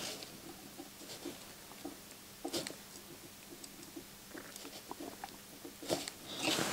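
Faint small clicks and taps from desoldering by hand: a soldering iron held on a circuit-board joint while a capacitor is worked loose. The clicks are irregular, with a slightly sharper one about two and a half seconds in and another near the end, over a faint steady hum.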